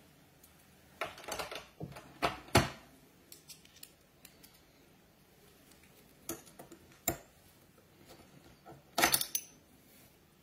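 Small hobby tools and paint brushes being handled and set down on a cutting mat: irregular light clicks and clatters of hard objects, the sharpest about two and a half seconds in and a quick cluster near nine seconds.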